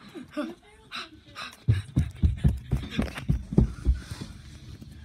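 Rapid, heavy panting close to the phone's microphone, about four or five breaths a second, starting about a second and a half in and easing off near the end.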